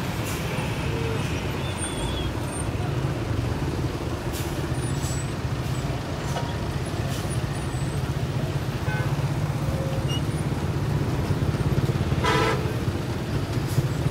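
Diesel engines of large passenger coaches running slowly in a jammed queue, a steady low rumble, with a brief louder sound about twelve seconds in.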